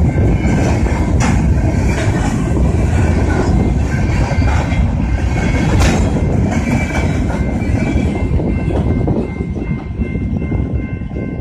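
Freight train of covered hopper cars rolling past at close range: a steady rumble of steel wheels with sharp clacks over the rail joints, easing a little near the end as the last car clears. A railroad crossing warning bell rings steadily under it.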